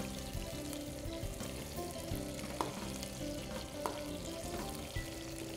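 Whole garlic cloves and shallots sizzling in hot oil as a metal spatula stirs them around a non-stick pan, with a few sharp clicks of the spatula against the pan.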